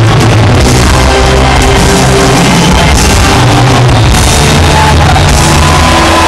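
Live rock band playing loudly in a stadium, recorded from the audience and overloaded and distorted.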